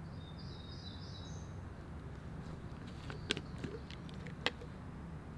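A songbird gives a short high call in the first second or so, over a steady low background rumble. About three and four and a half seconds in come two sharp clicks.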